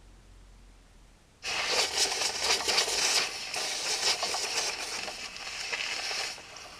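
Compressed-air blow gun blasting into a lawn tractor's small engine to clear out a packed mouse nest. A loud, uneven rush of air starts about a second and a half in, runs for about five seconds, and eases off near the end.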